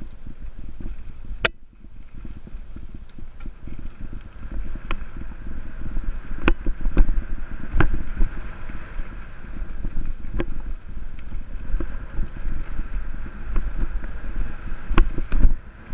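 Jamis Dakar XCT Pro full-suspension mountain bike ridden at speed over dirt singletrack: a steady rumble of tyres on the trail with frequent sharp clicks and rattles from the bike over bumps. A sharp click about a second and a half in is followed by a brief lull.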